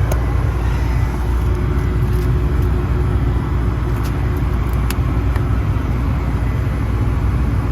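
Gas-fired heating unit running in heat mode: blower motor and inducer motors making a steady low hum and whoosh, with a faint steady tone over it. A few faint ticks about four and five seconds in.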